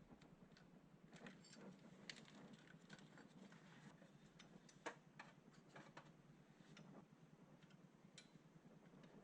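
Near silence with faint, scattered sharp clicks and light taps at irregular intervals over a low background hum.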